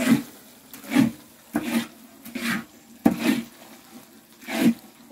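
A wooden paddle stirring thick, sticky kalu dodol paste in a large metal pan: a rhythmic run of short scraping, squelching strokes, about one a second.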